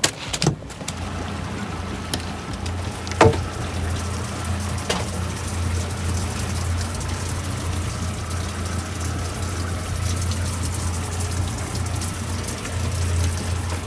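Boat livewell pump running with a steady low hum while water trickles into the livewell. A few sharp knocks come in the first five seconds.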